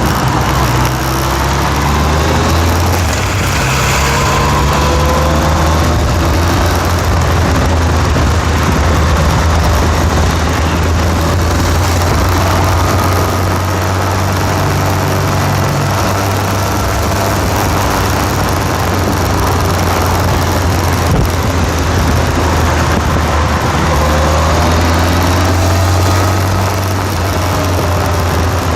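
An engine running steadily, with a strong low hum and slow rises and falls in pitch.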